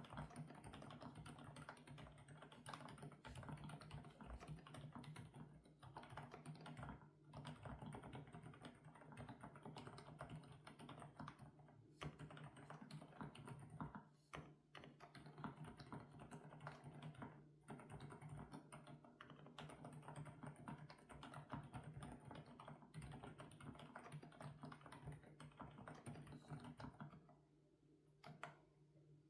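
Continuous fast typing on an FL-Esports OG98 mechanical keyboard with Kailh Coconut Latte switches, a dense run of keystroke clicks broken by a few brief pauses and thinning out near the end.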